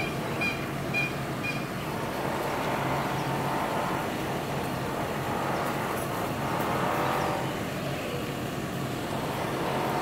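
Steady road-traffic noise with a low engine hum. Four short high beeps sound about half a second apart in the first second and a half.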